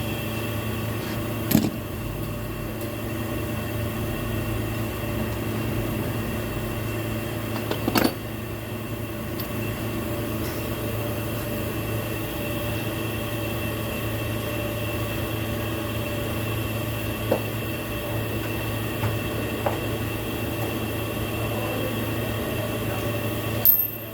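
A steady low mechanical hum with several steady tones above it, broken by a few sharp clicks or knocks, the loudest near the end.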